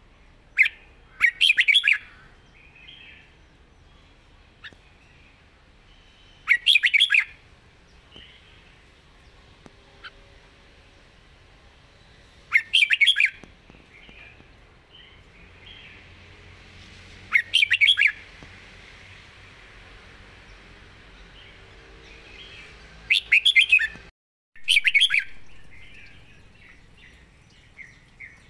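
Red-whiskered bulbul singing about six short, bright song phrases of a second or less each, spaced a few seconds apart.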